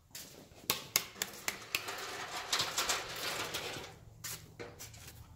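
A run of light clicks and knocks, with a stretch of rustling in the middle, from footsteps and from a tool and ladder being handled.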